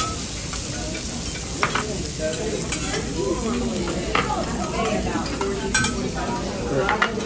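Food sizzling on a hot teppanyaki griddle, a steady hiss, with the scrapes and sharp clicks of a metal spatula working fried rice on the steel plate.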